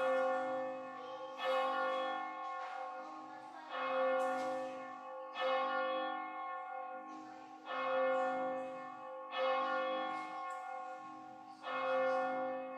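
Church bell tolling, one strike about every two seconds, each stroke ringing on and fading into the next; seven strokes, all at the same pitch.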